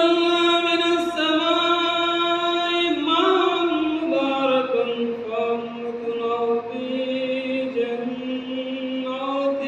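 A man reciting the Quran in the melodic chanted style of qirat, drawing out long held notes with slow glides; the pitch steps down about four seconds in.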